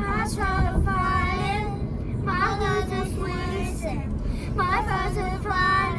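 A child's voice singing a melody in several long held notes, over a steady low rumble.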